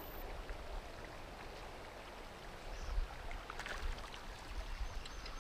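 River water flowing steadily, with a few small splashes about three and a half seconds in.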